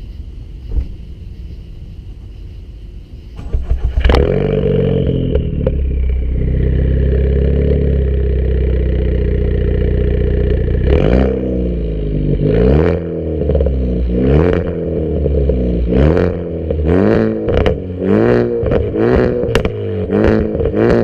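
Ford Focus ST's turbocharged four-cylinder on a nearly straight-piped exhaust (catless downpipe, muffler delete) starting up about four seconds in and running steadily. From about eleven seconds in it is revved again and again, the revs coming faster toward the end, with sharp crackles and pops from its custom ethanol tune.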